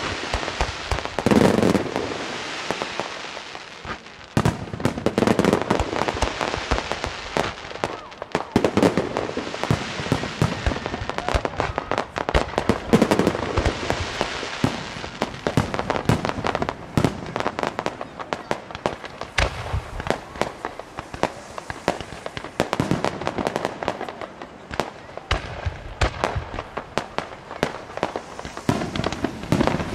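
Aerial fireworks display: shells bursting with heavy bangs every few seconds, amid dense crackling and popping from the stars.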